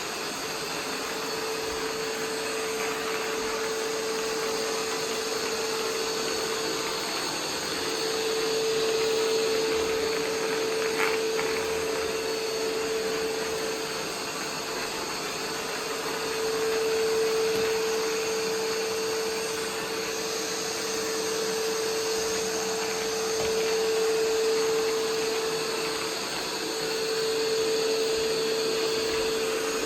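iRobot Roomba 505 robot vacuum running, a steady motor hum with a wide whooshing noise, growing louder and softer by turns, with one short click partway through.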